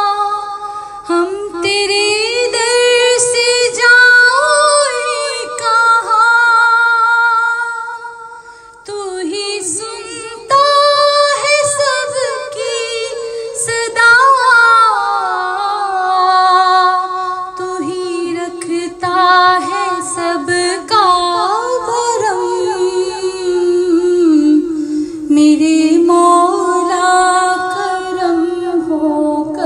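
A woman's voice singing a slow devotional prayer song, holding long notes with sliding ornaments, with a short break between phrases about eight seconds in.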